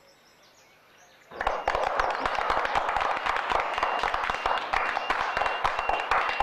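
Quiet background, then a little over a second in, many people break into loud, dense clapping that goes on steadily, with a thin high tone sounding on and off through it.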